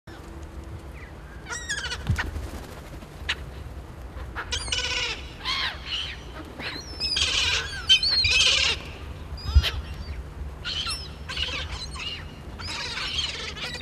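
A flock of gulls calling, many sharp cries overlapping, busiest about seven to nine seconds in, as the gulls squabble over food.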